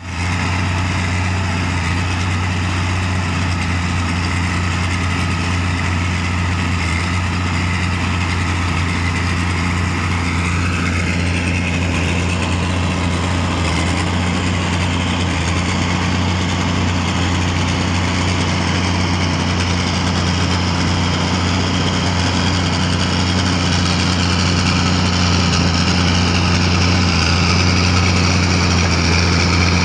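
Backhoe loader's diesel engine running steadily with a deep hum, working a rear-mounted trenching attachment; the engine grows a little louder over the last few seconds.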